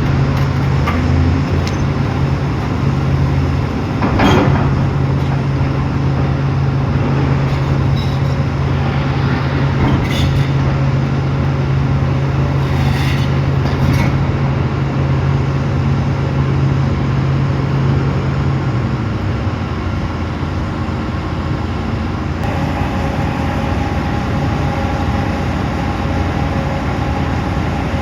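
Excavator's diesel engine running steadily under load while working a large granite block, with a sharp knock about four seconds in and a few lighter clicks later. The engine's low steady note drops away after about nineteen seconds, and a higher steady whine comes in a few seconds after that.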